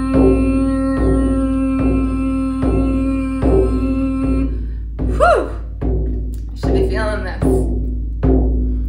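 Large hide frame drum struck with a padded beater in a slow steady beat, about one stroke every 0.8 seconds. A held droning tone sounds beneath the beats and stops about halfway through.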